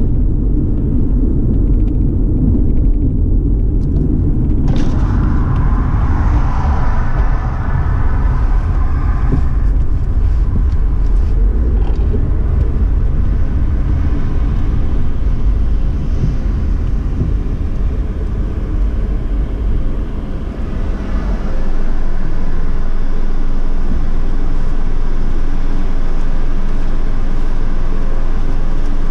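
Car driving with a heavy low road rumble. It eases and settles into a steadier hum about two-thirds of the way in.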